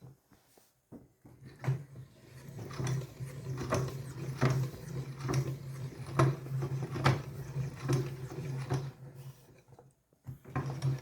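Meat grinder running with a steady motor hum, with irregular crunching and crackling as Choco Pie cookies are forced through it. It goes quiet for a moment near the end, then starts again.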